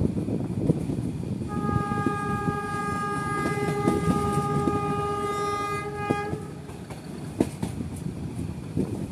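Metre-gauge diesel locomotive's horn sounding one long steady blast of about five seconds, starting about a second and a half in, heard from a coach further back over the rumble and clatter of the coaches running on the track.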